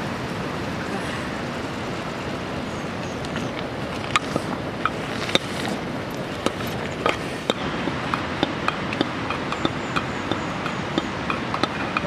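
Open wood fire crackling under a cooking pot: sharp, irregular pops that come more often from a few seconds in, over a steady rushing noise.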